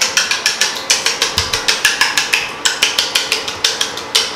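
Eggs being whisked by hand in a plastic bowl, the utensil clicking against the bowl about five or six times a second, with a short break midway, as the eggs are beaten for an omelette.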